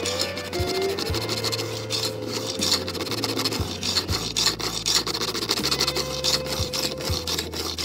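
Fret ends being filed down along the edge of a guitar fingerboard: a file rasps against the metal fretwire and wood in quick, repeated back-and-forth strokes.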